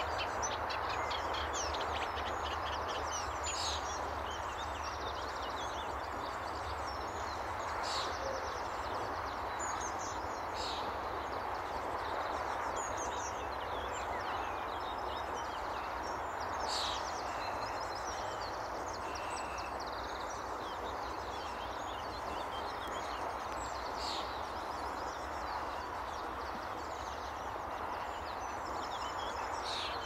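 A steady background rush of noise, with the chattering song of a reed warbler, runs of quick, scratchy repeated notes, coming and going over it.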